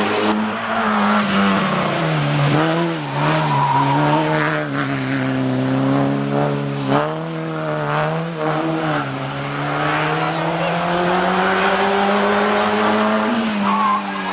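Small group N racing hatchbacks (1300–1600 cc four-cylinders) driven hard up a hillclimb course, engine pitch repeatedly climbing and dropping with throttle and gear changes. A second car's engine comes in near the end as it approaches.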